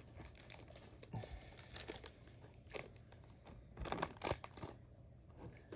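A trading card pack being opened: faint crinkling and tearing of the wrapper and light rustles and clicks of the cards being handled, with a few sharper crackles about four seconds in.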